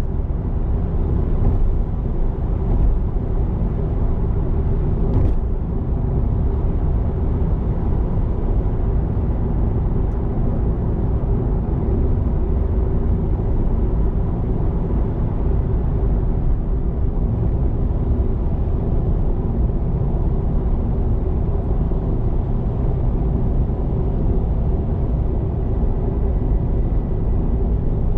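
Car cruising at a steady speed, heard from inside the cabin: a steady low rumble of tyre and road noise that does not change in level.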